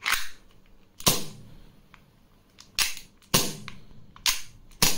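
Umarex Beretta M9A3 CO2 blowback air pistol dry-fired without BBs, about six sharp single shots at uneven intervals, the slide cycling with each one; the strong report shows good CO2 pressure.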